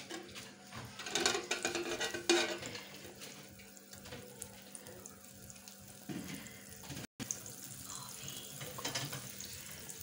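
Metal spatula scraping across a ridged nonstick grill pan as margarine is spread, with a few louder strokes in the first couple of seconds. A steady low hiss from the melting margarine runs underneath.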